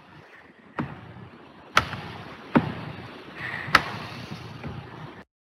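Four sharp knocks and clicks spread over about three seconds, over a low rumbling room noise picked up by a conference-call microphone; the sound cuts off suddenly near the end as the feed closes.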